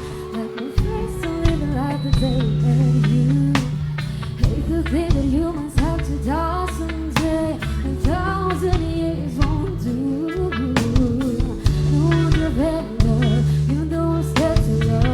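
A live reggae band plays a slow love song: a steady bass line, a drum kit and a sung melody.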